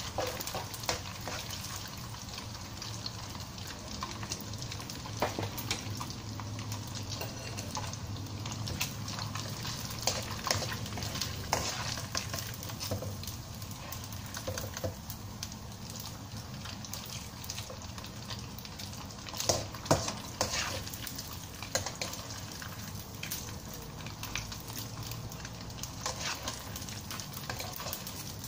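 Dried anchovies sizzling in hot oil in a wok as they are fried crisp, stirred and scooped with a wire-mesh strainer. Scattered clicks and taps of the metal strainer against the pan run through it, with a few louder knocks about twenty seconds in.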